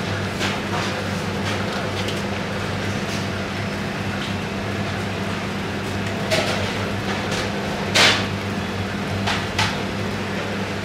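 Steady low electric hum of kitchen machinery, with scattered knocks and thumps as pizza dough is handled and pressed into a floured metal pan. The loudest thump comes about eight seconds in, with smaller knocks a little before and after it.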